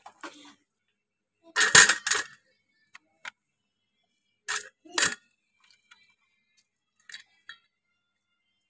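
Peeled garlic cloves and cut onion pieces dropped into a stainless steel bowl: short knocks and clinks, the loudest cluster about two seconds in and two more around five seconds, with a few small clicks between.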